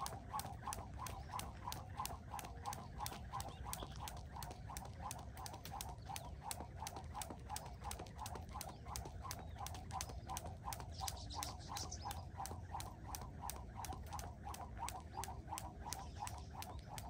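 Skipping rope hitting the ground in a fast, even rhythm of about five sharp clicks a second, with a steady low rumble underneath.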